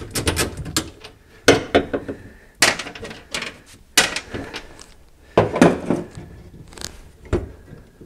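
Irregular metallic clicks and clanks of a wrench and the factory floor shifter of a 1987 Oldsmobile 442 as the shifter is unbolted and worked loose, about a dozen sharp knocks of varying loudness.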